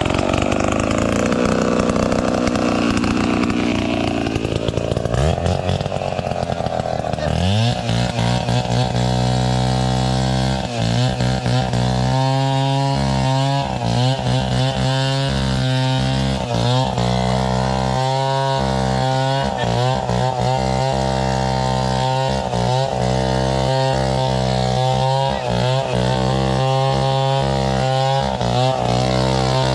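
Gasoline chainsaw cutting coconut trunk wood into 2x2 lumber. The first several seconds are a rough, uneven cutting sound; about seven seconds in the engine note rises and then holds a steady high pitch, with brief dips, to the end.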